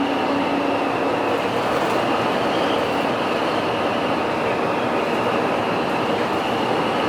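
Steady running noise heard inside a moving passenger vehicle, an even rumble and hiss that does not change.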